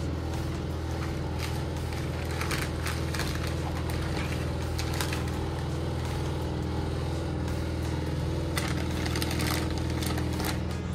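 A steady low hum runs throughout, with scattered short crinkles and clicks from food being handled on a foil-lined baking tray, a few around two to three seconds in and a cluster near the end.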